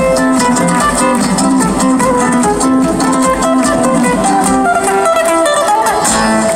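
Two amplified acoustic guitars playing live: a quick picked melody over a steady rhythmic beat.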